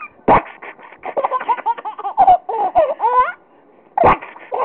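Baby laughing in quick, high, rising-and-falling bursts for about three seconds, a short pause, then another burst of laughter near the end.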